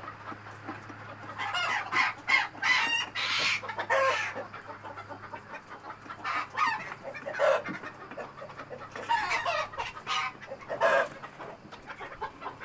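Chickens squawking and clucking in loud bursts, three spells a few seconds apart: birds protesting as they are grabbed off their roost.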